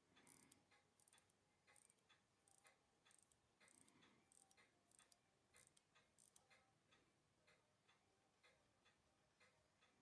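Nomos Glashütte watch's ETA 7001 hand-wound movement ticking faintly and evenly, with a little finger handling of the case. The balance staff is broken, so the watch only runs in the dial-up position.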